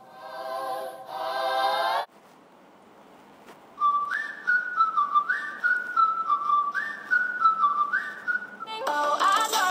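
Background music: a pop track with singing, a brief lull about two seconds in, then a whistled melody playing a short phrase four times over, before music with singing returns near the end.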